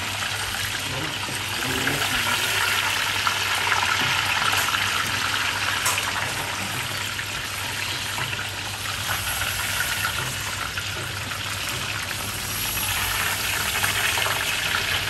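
Deep frying in a pot of hot oil: a steady sizzling and bubbling as a coiled sausage cooks and is turned with wooden chopsticks.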